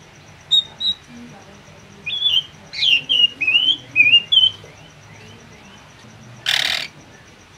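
Caged drongo calling: a run of short whistled chirps and quick rising and falling notes for the first four and a half seconds, then one loud, harsh, rasping call about six and a half seconds in.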